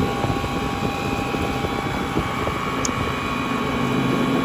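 Hangkai 48V 1200 W electric outboard motor running flat out on an overvolted 72-volt battery: a faint steady whine over a constant rush of water and wind noise as the boat moves, with a lower hum joining near the end.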